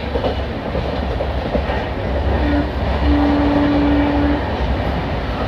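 Train hauled by a WAP-4 electric locomotive running on the track with a steady rumble. The locomotive's horn gives a short toot about two and a half seconds in, then a longer single-tone blast of over a second.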